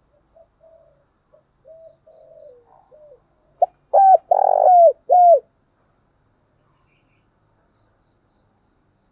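Spotted dove cooing: a string of soft, short coos, then about three and a half seconds in a loud phrase of four coos, the second one long, after which it stops.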